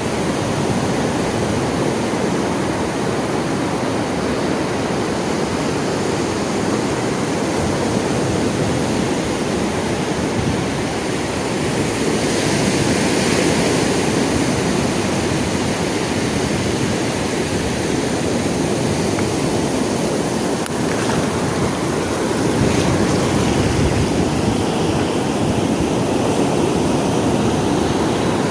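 Sea waves washing on a shore in a continuous wash of surf, with a wave breaking louder about twelve seconds in and another a little after twenty seconds.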